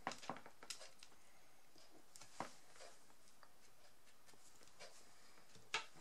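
Quiet room tone broken by a few small taps and clicks of a brush pen and hands on paper and a craft mat: a short cluster at the start, one about two and a half seconds in, and one near the end.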